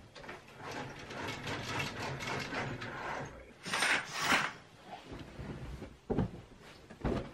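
A window blind pulled down with a run of quick ratcheting clicks, then grommet curtains drawn shut, their rings scraping along the metal curtain rod in two loud swishes. Two short thumps follow near the end as pillows are handled on the bed.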